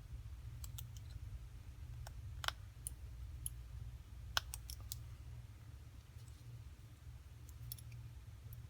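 Scattered small clicks and taps of tools and tiny parts being handled while an iPhone 4S is worked on, about a dozen in all, the sharpest about two and a half and four and a half seconds in, over a steady low hum.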